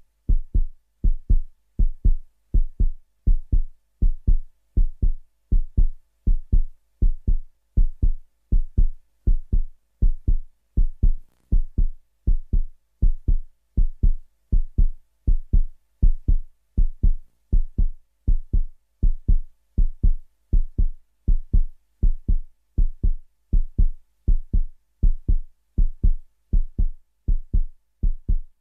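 Heartbeat sound effect: deep double thumps, 'lub-dub', repeating steadily at about one beat a second.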